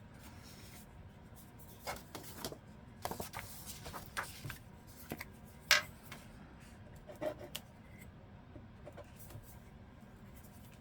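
Handling of paper and a glue stick on a work table: scattered soft clicks and rustles, the sharpest about six seconds in.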